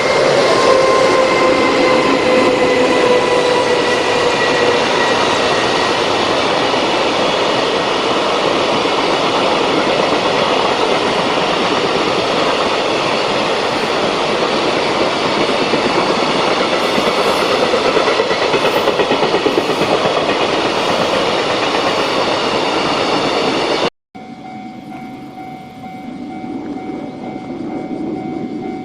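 Electric freight train passing close by: a whine from the locomotive falls slowly in pitch as it goes past, then the dense, steady running noise of the wagons on the rails carries on for about twenty seconds and cuts off abruptly.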